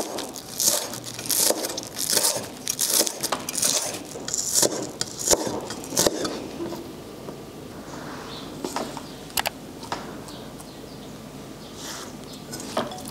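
Chef's knife slicing green onions on a wooden cutting board: quick, irregular chops with a crisp crunch. After about seven seconds the chopping thins out to a few scattered taps.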